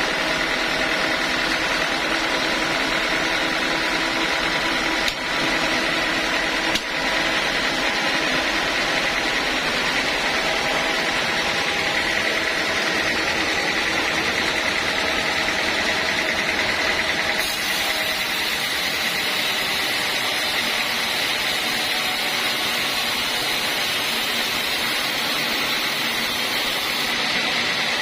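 Homemade band sawmill running steadily while sawing teak, a continuous machine drone with a high whine; the tone shifts slightly a little past halfway.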